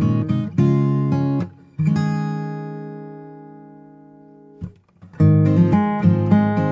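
Background music: an acoustic guitar strumming chords. Just under two seconds in, one chord is left ringing and slowly fades for nearly three seconds before the strumming starts again.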